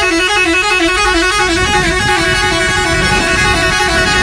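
Musical air horn on a VW Crafter minibus playing a tune of quick stepping notes without a break, over the low rumble of the vehicle.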